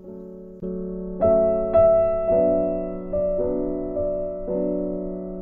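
Background music: a keyboard playing slow, sustained piano-like notes and chords, a new note struck about every half second and fading away.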